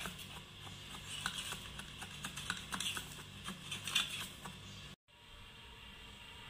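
Spatula blade scraping and ticking irregularly against the inside wall of a metal cake tin as it is run around the edge to loosen the baked cake. It stops abruptly about five seconds in, leaving faint room noise.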